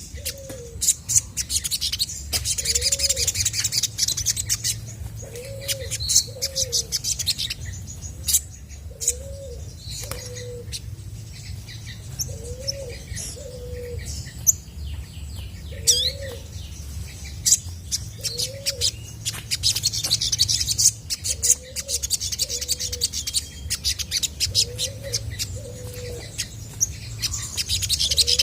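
Olive-backed sunbird singing: rapid, high chirps and ticking trills. Behind it, a low arched call is repeated every second or two.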